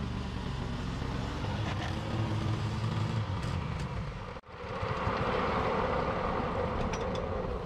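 Commercial walk-behind lawn mower's engine running steadily. The sound drops out for an instant about halfway through and comes back with a brighter, higher tone.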